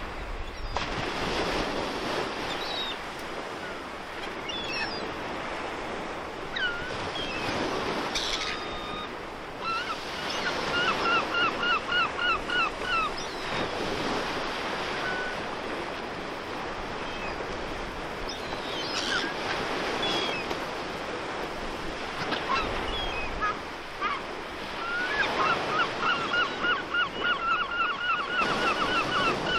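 Sea surf and wind with birds calling over it: scattered single calls, and two runs of rapid repeated calls, about four a second, one in the middle and one near the end.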